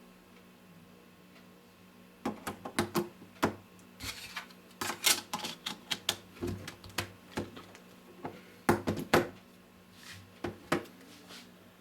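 Irregular clicks and taps in quick clusters, as of a phone and its packaging being handled during unboxing. They begin about two seconds in and thin out near the end.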